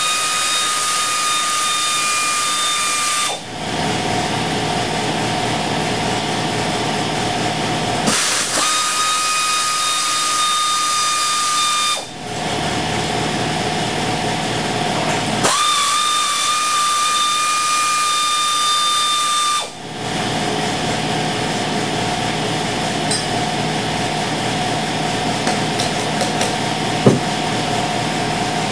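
1950 Nash compressor running, switching back and forth between loud hissing air with a steady whistling tone and a lower running sound with a fast, even beat. The hiss comes three times, about four seconds each, and the running sound holds steadily through the last third, with one sharp knock near the end.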